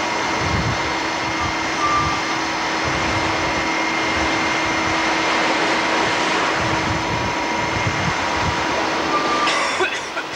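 Steady running noise aboard a ship underway at sea: a rushing drone with a constant whine, and wind buffeting the microphone in low gusts. The level drops suddenly near the end.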